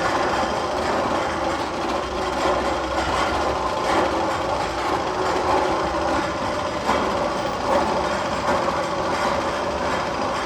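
One of the Magnum XL-200 tunnel's sound effects playing over loudspeakers: a steady mechanical, train-like rumble with a faint hum, even in level throughout.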